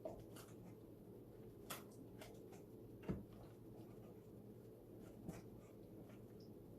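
Near silence: room tone with a few faint, scattered clicks and light handling noises.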